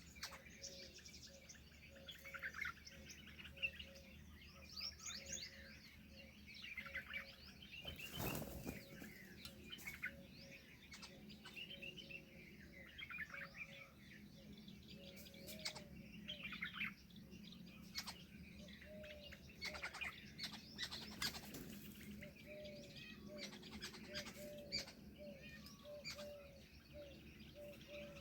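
Mixed chorus of small birds chirping and trilling. Under it, a low short call note repeats steadily a couple of times a second. One brief rustle or thump about eight seconds in.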